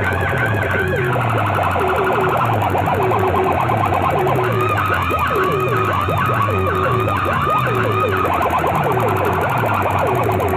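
Banks of horn loudspeakers blaring loud electronic siren-like tones: many overlapping rapid rising and falling chirps over a repeating low falling pulse, steady in level throughout.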